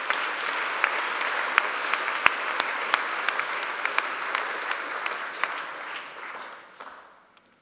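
Audience applauding, a dense patter of claps that holds steady and then dies away over the last second or two.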